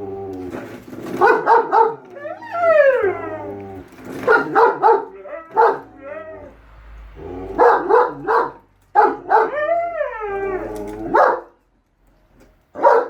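A German Shepherd and a Siberian Husky vocalising back and forth: clusters of short barks alternate with long howl-like calls that slide up and down in pitch. The calls stop for about a second near the end.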